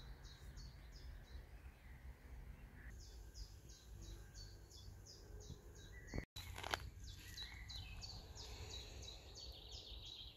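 Faint birdsong in a garden: a bird repeats short, high, down-slurred notes about three times a second, with a buzzier trill near the end. The sound drops out for a moment about six seconds in.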